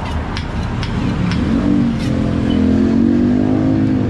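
A motor vehicle's engine comes in about a second and a half in and runs steadily, slightly rising, and is the loudest sound. Before it there are a few light clicks of metal fork parts being handled.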